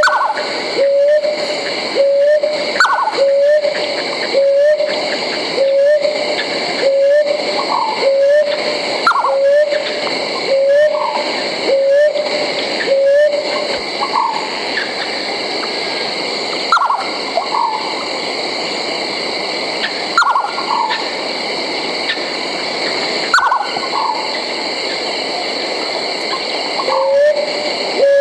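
Night-time forest soundscape of owls calling. One owl repeats a short low note about once a second through the first half and again near the end, while others give higher hoots that rise and fall every few seconds, all over a steady high-pitched background chorus.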